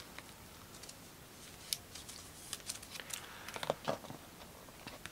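Faint, scattered clicks and light taps of trading cards being handled off to the side.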